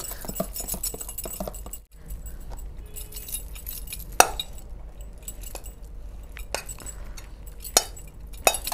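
Soft clatter of food being served, then sharp metallic clinks of a steel spoon striking a steel pot as rice is scooped out, the loudest about four seconds in and a few more near the end.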